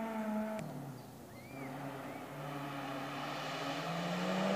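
Hill-climb race car engine running hard in the distance, its note dropping about half a second in, then rising slowly in pitch and growing louder as the car approaches.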